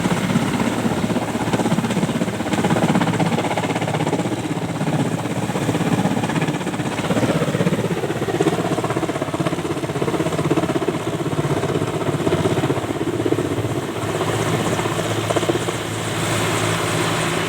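Helicopter running overhead: a steady, fast-pulsing rotor beat over the engine.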